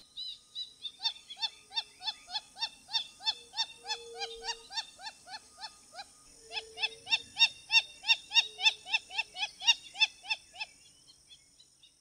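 Wattled jacana calling: a long series of short, repeated notes, about three a second, with a brief break about six seconds in and fading out near the end, over a steady high drone.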